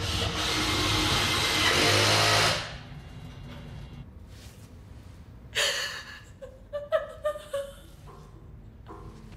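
A loud, steady motor-like rushing noise runs for about two and a half seconds and then stops. Later come a sharp noise and a few short, faint whimpering sounds from a frightened woman.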